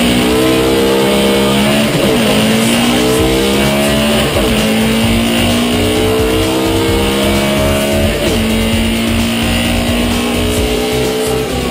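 Volkswagen drag car's engine at full throttle on a drag-strip pass, heard from inside the car: its pitch climbs through each gear and drops sharply at three upshifts, about two, four and eight seconds in.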